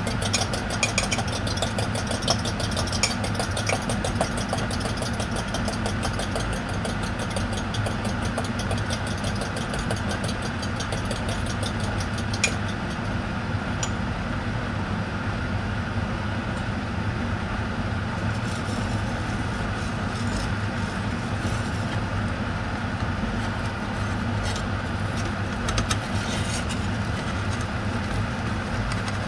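Beaten egg and egg-soaked bread frying in a non-stick pan, sizzling with dense fine crackling that thins out about halfway through, over a steady low hum. A single sharp tick sounds about twelve seconds in.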